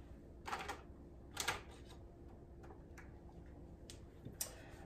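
A handful of light, irregular knocks and taps as cut bars of soap are handled and set down on a wooden stand and cutter. A faint steady hum sits underneath.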